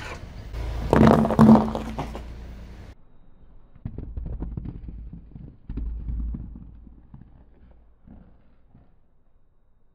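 A rubber ball squeezed under a car tyre, with two loud bangs about a second in. Then the tyre rolls over three bath bombs, crunching them to powder in two bursts of crackling that fade away.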